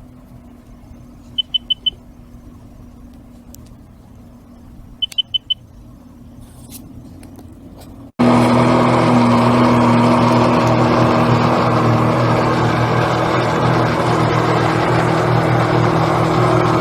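A motor hums steadily with two quick runs of four high beeps. About eight seconds in, an abrupt cut brings a much louder, steady engine running close by, consistent with a jet ski towing the dam.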